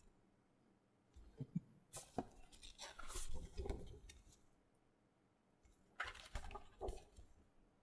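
Faint rustling and tapping of large paper art prints being shuffled and handled, in two bouts: one starting about a second in, a shorter one about six seconds in.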